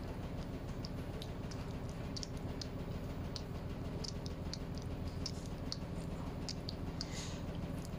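Scattered light ticks and clicks of a cat's claws on a tiled floor as it paws at a towel, with a brief towel swish near the end, over a steady low hum.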